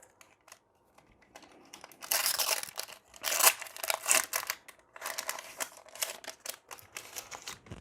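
Packaging crinkling and being torn open by hand, in irregular rustling bursts, as a pack of Magic: The Gathering promo cards is unwrapped.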